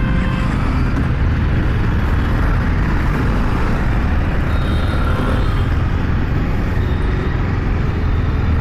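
Steady wind rumble and road noise on a motorcycle rider's microphone as a TVS Apache RR 310 rides off through city traffic, its engine running under the noise.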